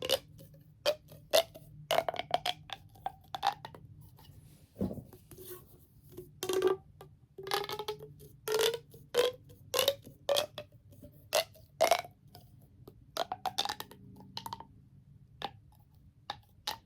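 Plastic pop tubes being pushed closed, their ribbed sections snapping shut in irregular runs of pops and clicks. Many of the pops have a short hollow ring.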